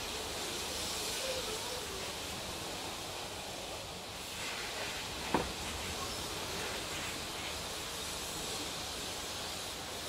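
Automatic gantry car wash running, its rotating brushes scrubbing the car under water spray: a steady hiss, with one sharp click about five seconds in.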